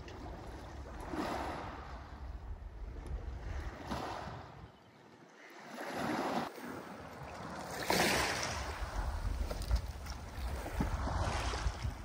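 Strong wind blowing in gusts, each gust swelling to a rushing noise and then easing, over a low rumble of wind buffeting the microphone. The strongest gust comes about two-thirds of the way through.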